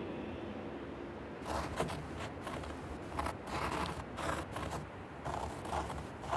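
Pen or pencil scratching on paper in short, irregular strokes, starting about a second and a half in, as words are written. A low steady hum runs underneath.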